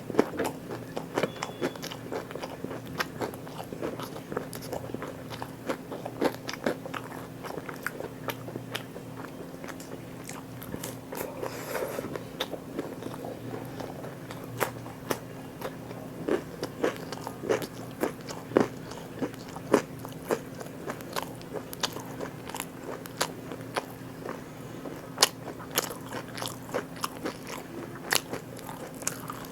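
Close-miked eating: a person biting and chewing food, with many irregular sharp crunches and mouth clicks, over a faint steady hum.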